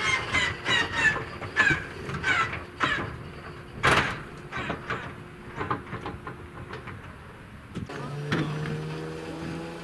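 The Antonov An-2's nine-cylinder Shvetsov ASh-62 radial engine turning over slowly without catching, giving irregular coughs and pops as single cylinders fire, with squeaky chirps in the first three seconds and one loud bang about four seconds in. The pops thin out, and near the end a steady low drone with slowly rising tones takes over.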